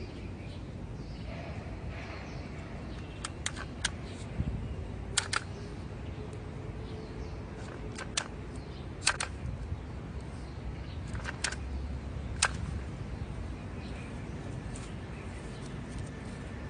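Sharp metallic clicks and snaps from a hand-held plant-tying tool (tapetool) as its stapler mechanism and tape magazine are loaded and worked: about a dozen clicks, several in quick pairs, over a steady background hiss.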